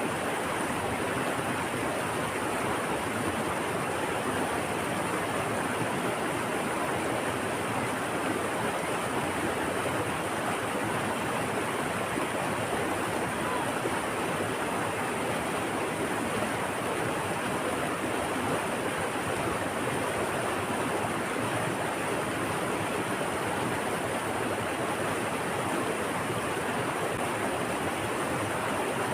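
Steady, even rush of water with no swells or breaks, along with a thin, high, steady tone.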